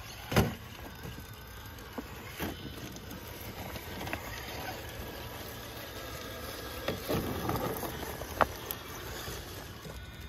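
Traxxas TRX-4 Bronco 1/10-scale RC crawler creeping over loose rocks and dry leaves: tyres and chassis scraping and crunching, with a few sharp knocks of the truck against rock, the loudest about half a second in.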